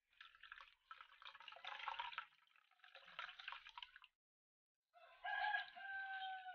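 A thin stream of coconut milk pours and splashes into a bowl of coconut milk, trickling unevenly for about four seconds. About five seconds in, a rooster crows once, a call of a second or so that stops sharply.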